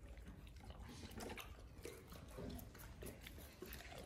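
Two Presa Canario puppies eating from a steel bowl of milk formula with chicken chunks: faint, irregular lapping and chewing clicks.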